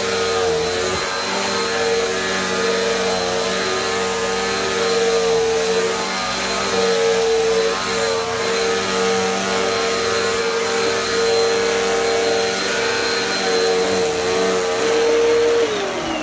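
Bissell PowerForce Helix upright vacuum cleaner running on carpet, a steady motor whine that wavers slightly as it is pushed back and forth. Near the end the motor's pitch drops as it winds down.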